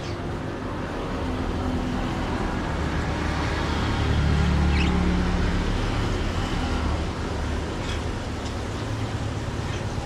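A motor vehicle's engine rumbling as it passes on the road, swelling to its loudest about halfway through and fading, with a few brief bird chirps over it.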